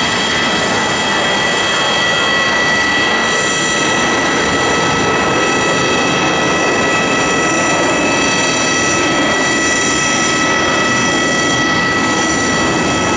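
Airbus A320's twin jet engines at climb-out thrust just after takeoff: a steady, loud roar with a high whine of several steady tones over it.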